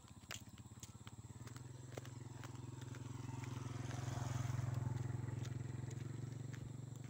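A small motorcycle engine running at a steady pitch. It grows louder, is loudest about four to five seconds in, then fades as it passes by. Light footsteps tick along on the pavement.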